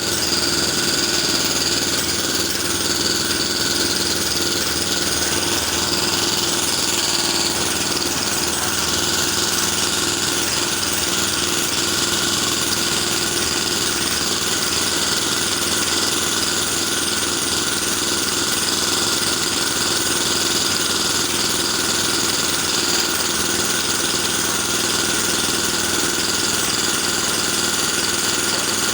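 Electric jackhammer running continuously: a steady, loud, rapid hammering that keeps up without a break.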